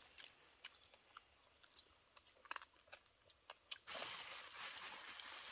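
Faint scattered clicks and crinkles of hands picking food out of plastic bags, with chewing. About four seconds in, a steady hiss starts.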